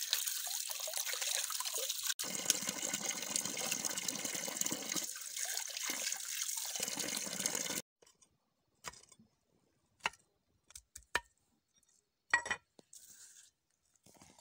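A stream of water pouring and splashing over hollow bamboo tubes as they are rinsed, stopping abruptly about eight seconds in. After that, only a few scattered light clicks and knocks.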